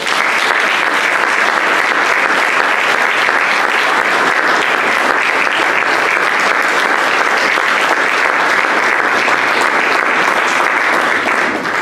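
Audience applauding steadily, starting all at once and dying away near the end.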